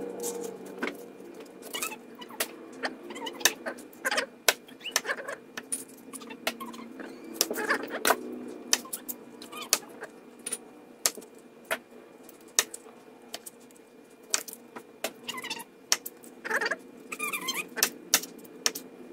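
Chef's knife cutting broccoli florets on a plastic cutting board: irregular sharp taps of the blade striking the board, with a few short squeaks as the stems are sliced.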